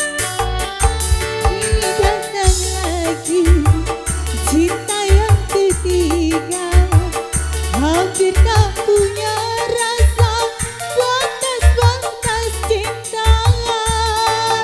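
Live dangdut music from a keyboard band: a steady drum and bass beat under a wavering lead melody that slides up into its notes.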